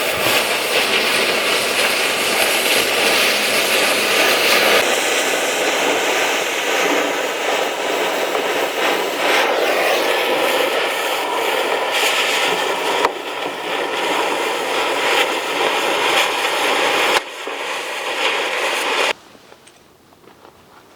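Oxy-acetylene cutting torch running steadily, a loud hissing roar of the gas jet as it burns through the steel hull plate; it cuts off near the end.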